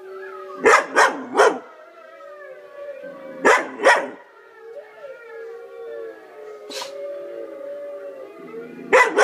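Long, wavering wolf howls with a dog answering in short, sharp barks: three in quick succession about a second in, two more a couple of seconds later, one near the seven-second mark and another near the end.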